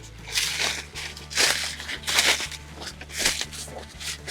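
Footsteps crunching on the forest floor while walking through woods, about one step a second.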